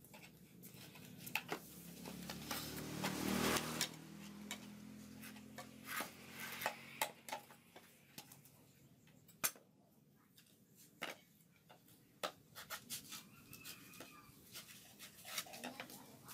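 Machete blade knocking and scraping on dry coconut shell: irregular sharp taps and clicks. A louder swelling noise with a low hum rises and fades about two to four seconds in.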